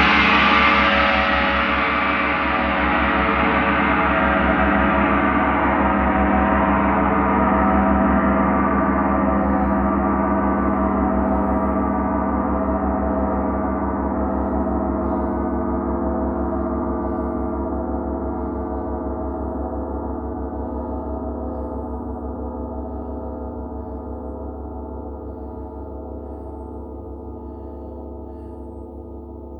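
A large gong, struck once, ringing out with many overtones and a pulsing low hum, fading slowly and evenly.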